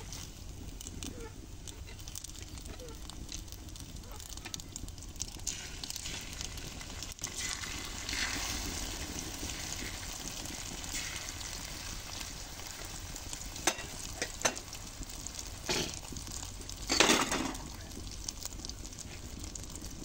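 Beaten eggs sizzling as they are poured into a large pan of frying meat over a wood fire; the sizzle grows louder a little before halfway. A few sharp knocks and a brief louder noise come near the end.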